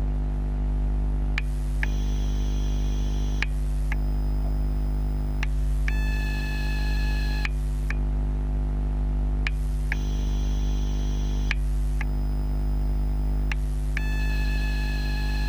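TGX12 LCD battery charger for NiMH/NiCd AA cells making its strange electrical noise, picked up through contact microphones. A steady low hum runs under a high-pitched whine that changes pitch about every two seconds, with a short click at each change, in a pattern that repeats about every eight seconds.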